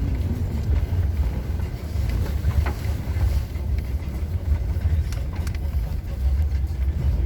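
Off-road vehicle driving, a steady low rumble with a few light knocks.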